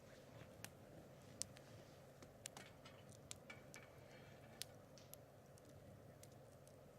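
Faint crackling of a wood campfire: irregular sharp pops and clicks, about a dozen, unevenly spaced over a low steady background.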